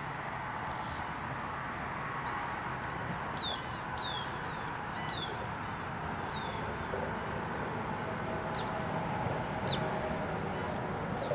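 A bird calling repeatedly: about a dozen short, high chirps, each falling in pitch, at irregular intervals, over a steady outdoor background hiss.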